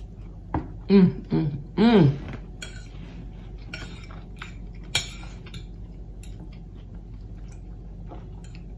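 Metal fork clinking and tapping against a plate of food, with scattered sharp clicks, the loudest about halfway through. Two short hummed voice sounds come about one and two seconds in.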